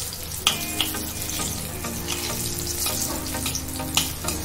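Halved brinjals shallow-frying in hot oil in a wok, a steady sizzle, with a steel spatula clicking and scraping against the pan a few times as they are turned. The brinjals are browned and nearly done.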